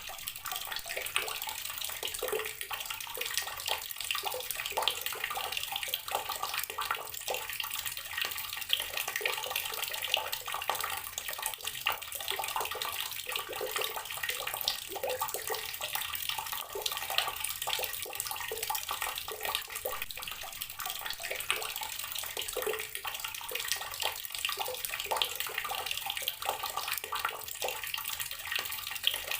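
Water tap running steadily, its stream splashing and spattering with a dense patter of small splashes.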